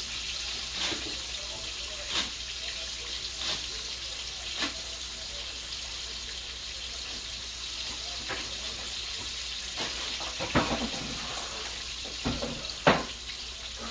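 Breaded chicken shallow-frying in a skillet of hot oil, a steady sizzling hiss, with scattered clicks and knocks of handling at the counter, more of them in the second half.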